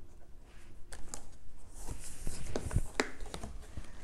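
Cardboard carton being opened by hand: the box lid slides and scrapes off, with scattered light knocks and taps of cardboard, the loudest knock near the end.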